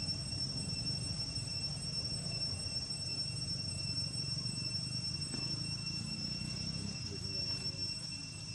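Steady, high-pitched drone of insects calling, over a continuous low rumble of background noise.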